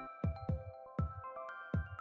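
Background music: a soft electronic track of held melodic notes over a deep, regular drum beat.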